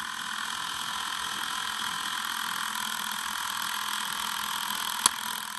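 Film projector running, a steady mechanical whir, with one sharp click about five seconds in.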